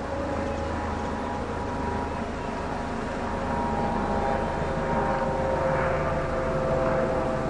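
A steady mechanical drone: several held tones over a noisy rumble, the tones shifting slightly in pitch partway through.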